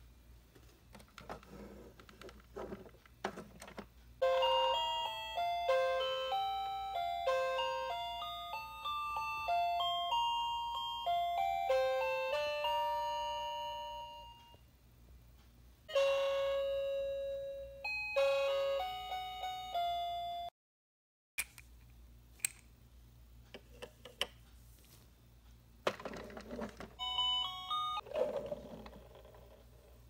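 Toy refrigerator's electronic sound chip playing a simple beeping jingle, one note at a time, then a shorter second run of the tune. Clicks and rustling from the plastic toy being handled come before the tune and near the end.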